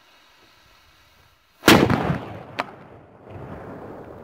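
Firecracker exploding with a single very loud bang about a second and a half in, destroying the red container it is taped to; the bang dies away over about a second. A second, smaller sharp crack follows about a second later.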